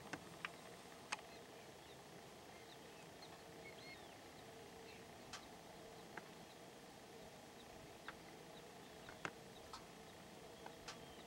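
Near silence broken by about ten short, sharp chirps spread irregularly, typical of distant black-tailed prairie dog calls across the colony, with a couple of faint small chirps about three seconds in.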